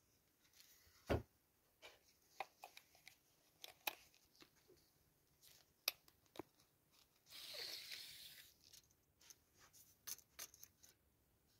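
Faint clicks and taps of a wooden board and a tape measure being handled, with a short sliding noise of about a second, seven and a half seconds in, as the tape measure's metal blade is pulled out along the board.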